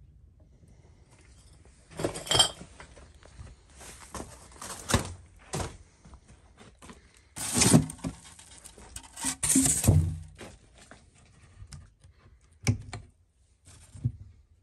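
Hard household objects being handled and shifted, making irregular clatters, knocks and thunks, with two single sharp knocks near the end.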